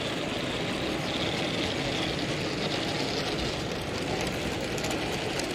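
Steady background hubbub of a model railway exhibition hall, with a few faint clicks about four seconds in.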